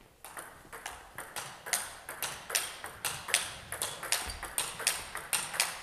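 Table tennis ball being struck with a racket and bouncing on the table in a quick rally rhythm. It makes sharp clicks, about four a second.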